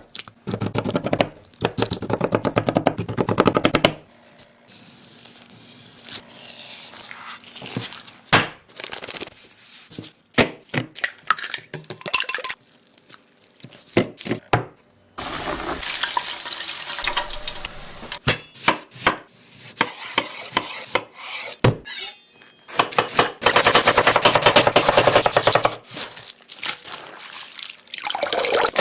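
Kitchen cooking sounds cut together: utensils clattering and scraping against pans and dishes, with stretches of dense crackling. The sound changes abruptly several times.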